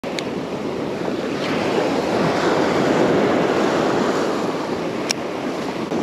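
Surf breaking and washing up the beach, swelling a couple of seconds in, with wind buffeting the microphone. Two sharp clicks stand out, one near the start and one about five seconds in.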